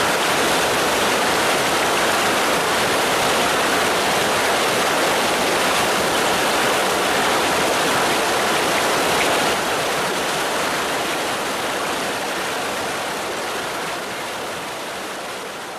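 Shallow stream rushing over rocks: a steady, dense rush of water that starts abruptly and fades slowly down over the last six seconds or so.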